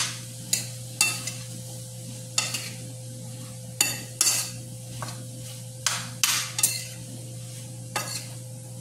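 Metal spoon stirring sautéed bitter melon in a stainless steel frying pan: irregular scrapes and clinks against the pan about once or twice a second over a soft sizzle, with a steady low hum underneath.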